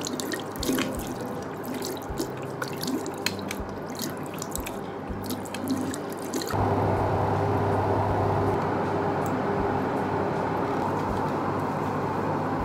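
Bathroom tap running into a sink, with drips and splashes as water is cupped in the hand and splashed on the face. About halfway through, the sound turns into a steadier, somewhat louder rush of water.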